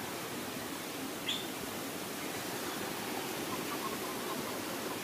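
Steady rush of water from a waterfall and its stream, with one short high chirp about a second in.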